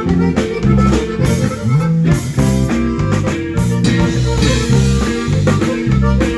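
Live band playing an instrumental passage: a walking bass line with a sliding note partway through, guitar and drum kit.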